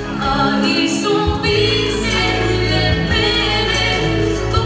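A young girl singing through a microphone over a backing track, holding long notes. The accompaniment's low bass drops out about a second in and comes back soon after.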